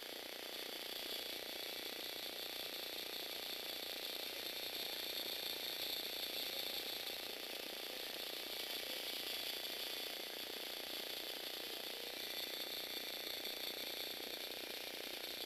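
Lego Technic four-legged walking robot running: a Power Functions 8293 motor driving its plastic gear train and leg linkages, giving a steady mechanical whirr of meshing gears.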